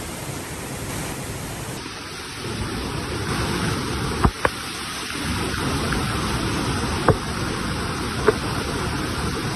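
Steady hiss of falling rain, a little louder from about two seconds in, with a few sharp taps: one pair about four seconds in, then two more single taps later.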